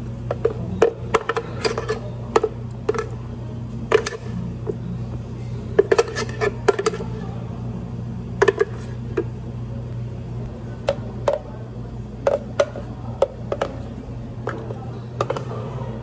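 Thick blended peach smoothie being poured and shaken out of a blender jar into a tall glass: scattered knocks and clacks of the jar against the glass, some in quick clusters, over a steady low hum.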